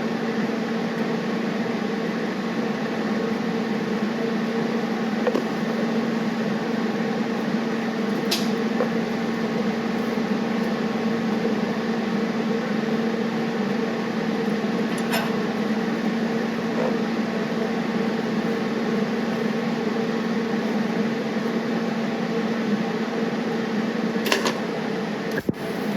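A steady mechanical hum of a running machine, with a few faint sharp ticks, about three of them, spread through it.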